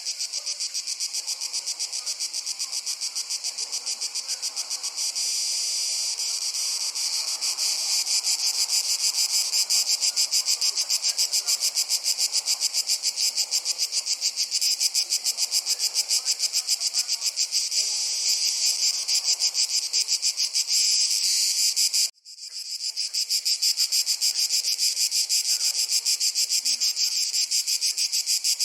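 Crickets chirping in a continuous, rapid, even pulsing, high-pitched, which cuts out for an instant about three-quarters of the way through before resuming.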